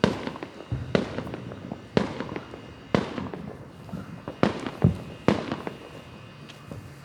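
Consumer fireworks going off: a string of sharp bangs roughly a second apart, each with a short echo, with a tight cluster of three about two thirds of the way through.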